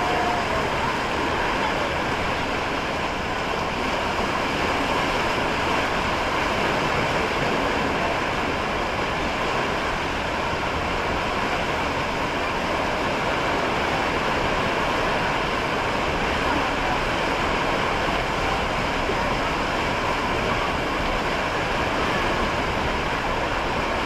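Steady rush of pumped water flowing down an open wild-river water-slide channel, with no rhythm or distinct events.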